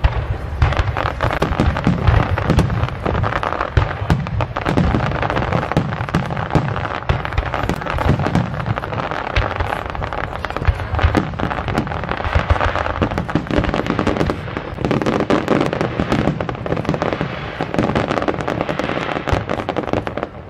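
Aerial fireworks shells bursting in a dense, continuous barrage of booms and crackles.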